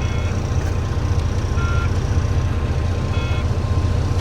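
Volvo VNL 670 semi truck's diesel engine running steadily as high idle is engaged from the new cruise/turn-signal switch, with a short electronic beep about every second and a half.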